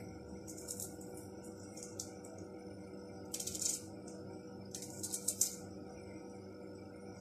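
Eggshell crackling in short crisp bursts as hard-boiled eggs are peeled by hand: three clusters of small cracks and clicks.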